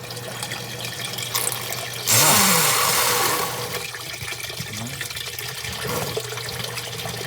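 Sump pump running with a low steady hum while water rushes and gurgles through it, with a louder rush about two seconds in that lasts around a second and a half.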